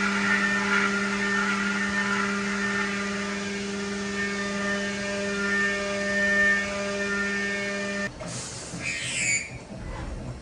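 CNC milling machine spindle and end mill cutting a metal block under coolant: a steady hum of several fixed tones. About eight seconds in, the tone stops abruptly and gives way to coolant spraying and splashing, with a few short high-pitched sounds.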